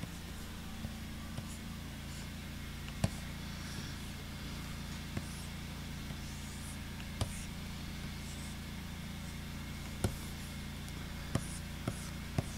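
Pen stylus strokes scratching faintly across a graphics tablet, with several sharp taps of the pen, over a steady low drone from lawn mowers running outside.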